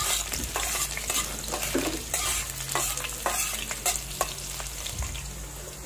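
Sliced onions sizzling in hot oil in a metal wok, a steady hiss, with a metal utensil scraping and clicking against the pan at irregular moments as they are stirred.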